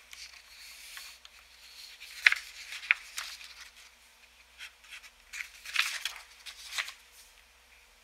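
Paper being handled on a metal clipboard as a written sheet is turned away to a blank one: rustling paper with sharp clicks and taps, two strong ones a little after two seconds and near three seconds, then a burst of rustling and clicks past the middle.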